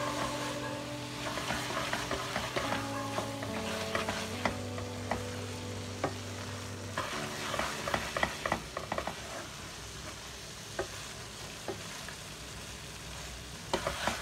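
A spatula stirring and scraping thick grated-carrot halwa against a stainless steel pan as it fries, with irregular sharp scrapes and clicks of the spatula on the metal over a light sizzle.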